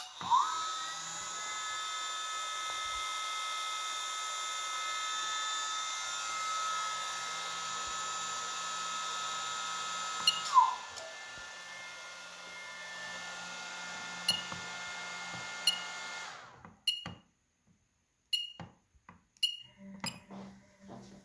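A relay clicks and a 1.5 kW water-cooled CNC spindle spins up, its whine rising fast to a steady high pitch. About ten seconds in the pitch drops as it winds down, and a fainter whine carries on until it cuts off about six seconds later. Then come several short beeps from the touchscreen controller, and a low hum starts near the end.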